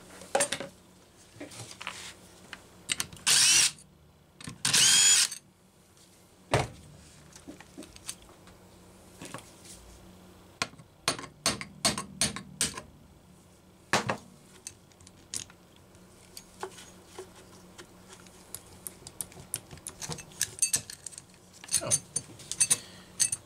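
Cordless drill/driver running in two short bursts about three and five seconds in, backing out fasteners on a Homelite chainsaw, followed by scattered clicks, taps and knocks of metal tools and saw parts being handled on a workbench.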